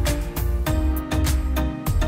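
Background music: plucked notes over a steady bass beat.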